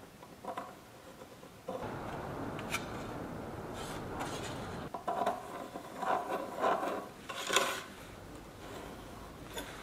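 A pencil scratching along plastic drawing stencils on a walnut board, with the stencils scraping and rubbing as they are shifted: a steady rasp for a few seconds, then a run of short scrapes.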